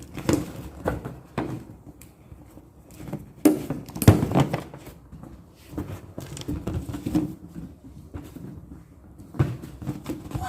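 Irregular knocks and clicks with rubbing between them, from hands handling balloons and balloon-stand parts; the loudest knock is about four seconds in.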